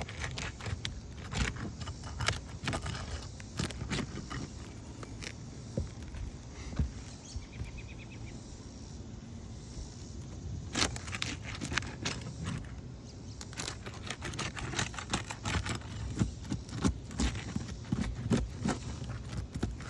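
Shingle snake (nail-removal tool) scraping and clicking under brittle asphalt roof shingles as the nails are worked loose, with the shingles crackling. The scrapes and clicks come irregularly, thickest in the second half.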